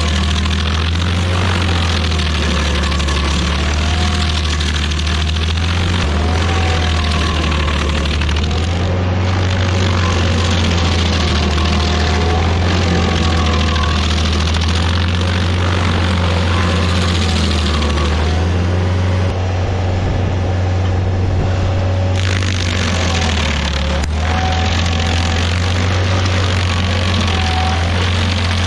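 Rayco RG50 stump grinder's engine running steadily under load while its toothed cutter wheel grinds through a stump, with a fainter whine that wavers up and down every couple of seconds as the wheel sweeps.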